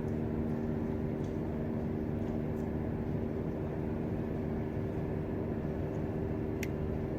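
Steady low drone of a docked ferry's engines running, with a constant hum tone over a rumble. A single sharp click near the end.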